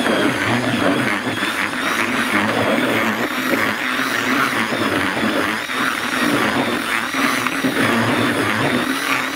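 Cordless drill running steadily at speed, spinning a mixing paddle through damp groundbait in a bucket: a second mix once the bait has soaked up its water.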